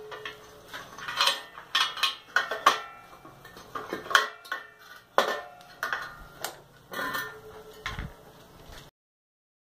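Irregular metal clanks and clinks, some ringing briefly, as a motorcycle's chromed exhaust pipe is worked loose and pulled off its mounts. The sound cuts off suddenly near the end.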